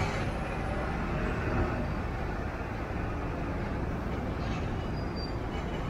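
Steady traffic noise from slow-moving heavy vehicles: a continuous low rumble of engines and tyres, with a container truck rolling close alongside.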